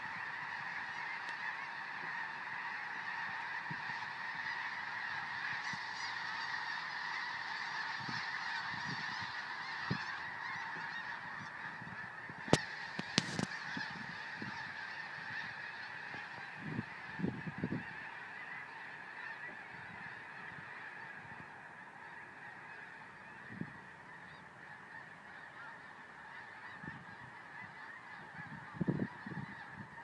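A huge flock of geese calling, a dense continuous din of honking that slowly fades away over the second half. A few short low thumps hit the microphone along the way.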